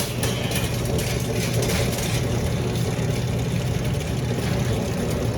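Ambassador model 9000 garage door opener's motor running steadily with a low hum, driving the door after being triggered from the remote: the remote's intermittent fault is now cured.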